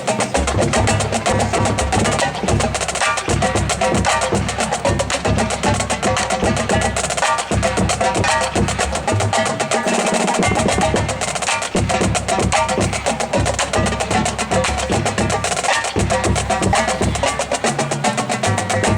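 High school marching drumline playing a cadence: fast, even snare strokes over pitched bass drums that step between notes.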